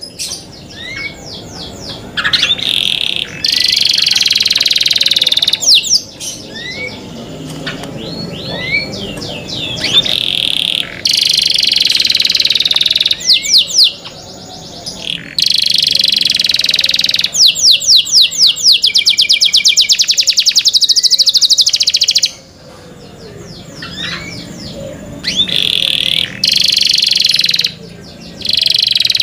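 Domestic canary singing a long, varied song of rolling trills and fast runs of repeated notes, broken by a few brief pauses.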